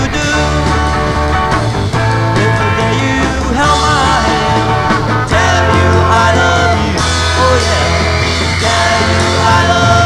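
Live rock band song: electric bass and guitars with several voices singing.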